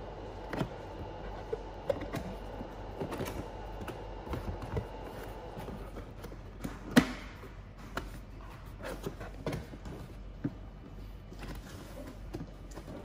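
Hands handling a cardboard box: scattered taps, scrapes and knocks on the cardboard, with one sharper knock about seven seconds in.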